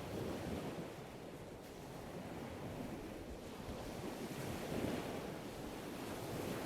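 Ocean waves breaking: a continuous rush of surf that swells just after the start and again about two-thirds of the way through.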